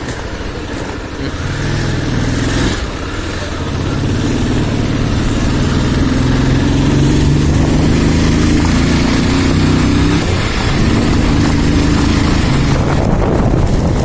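Motorcycle engine running under way, getting louder and rising slightly in pitch as it accelerates over the first few seconds, then holding steady. Wind buffets the microphone near the end.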